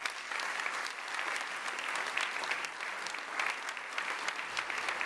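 Audience applauding: a steady clapping of many hands.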